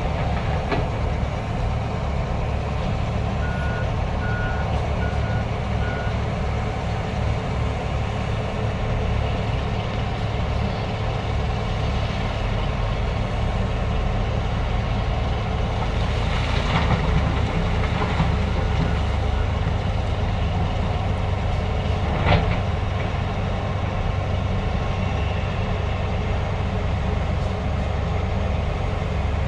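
Heavy diesel machinery, a Hitachi ZAXIS 470H excavator and a BharatBenz dump truck, running steadily, with four short evenly spaced reversing beeps a few seconds in. A couple of brief noisy surges come past the middle, and a single sharp knock about twenty-two seconds in.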